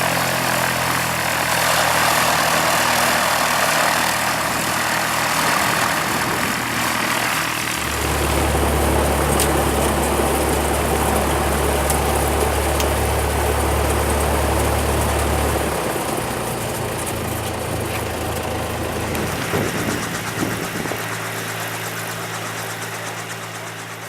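Cessna 172 piston engine and propeller running steadily, with a change in engine note about 8 seconds in and again about 16 seconds in.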